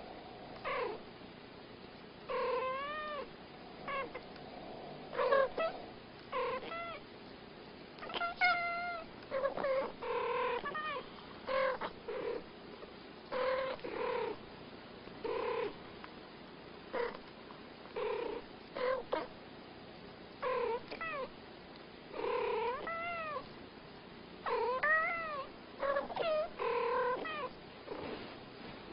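Two domestic cats chattering at each other in short meows and chirping trills, many calls rising and falling in pitch, traded back and forth with brief pauses between.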